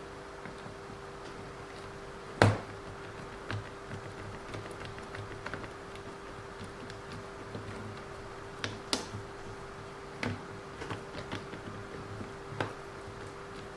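Scattered sharp clicks and taps of small tools and hard plastic and metal parts being handled while working on a hobby RC car, the loudest about two seconds in. A steady faint hum and a faint regular ticking about twice a second run underneath.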